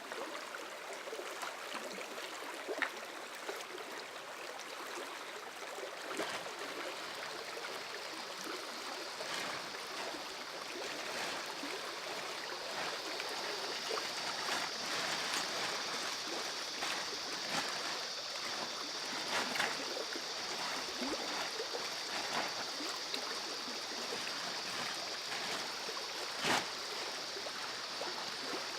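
River water flowing steadily, with scattered small splashes and knocks and one louder knock near the end. A steady high hiss joins about seven seconds in.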